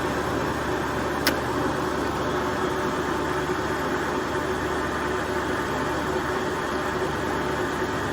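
LeBlond Regal gap bed lathe running under power at a steady speed, its headstock and gearing giving an even mechanical hum with a held tone, and a single sharp click about a second in.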